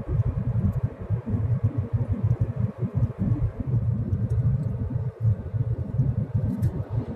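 Low, unsteady rumble of a moving car heard from inside the cabin: road and engine noise that flickers constantly in loudness.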